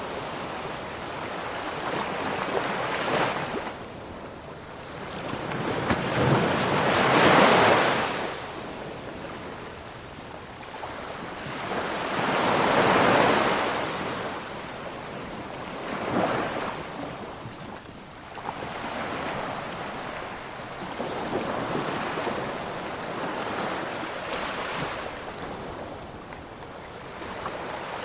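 Ocean waves rolling in and breaking, each one swelling to a rush and then fading over several seconds, in a slow, uneven rhythm.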